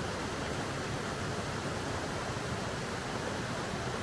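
Mountain stream cascading over rocks, a steady rushing hiss of water.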